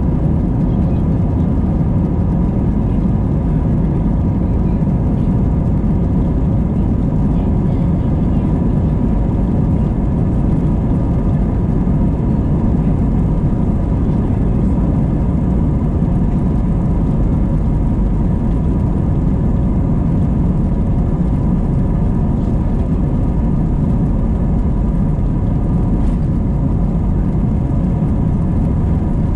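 Airbus A320 cabin noise while taxiing: a steady low rumble with several steady engine whine tones from the jet engines at low power.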